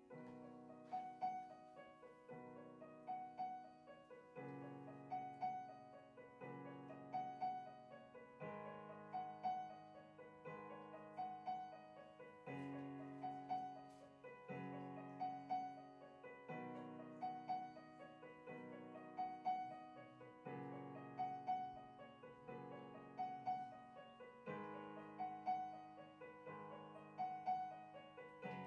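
Solo piano playing a gentle repeating figure, the low chord changing about every two seconds beneath a recurring high note.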